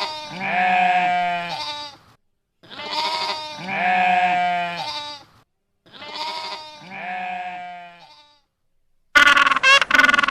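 A bleating farm animal: three long bleats of about two seconds each, with short pauses between them. About nine seconds in, a quick run of short, rapidly repeated calls from a different animal begins.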